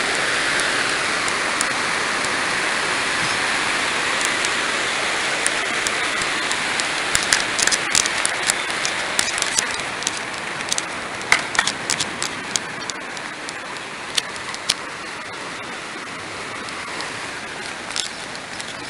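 Steady rush of tsunami floodwater flowing, an even hiss that gradually gets quieter in the second half, with scattered small clicks and knocks.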